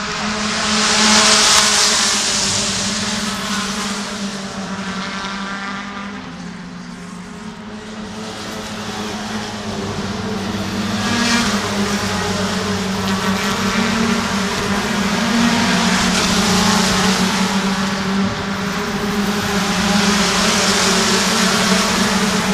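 British Touring Car Championship cars with turbocharged two-litre four-cylinder engines racing past at speed. Engine noise swells loudly and fades as cars pass one after another, about four times, with the engine pitch rising and falling through gear changes.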